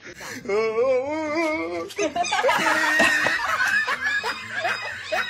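People laughing. A wavering, high-pitched laugh starts about half a second in and is followed by a denser stretch of laughter.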